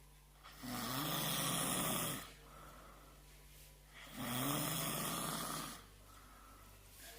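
A sleeping person snoring loudly: two long snores, each about a second and a half, with a quiet pause of a couple of seconds between them.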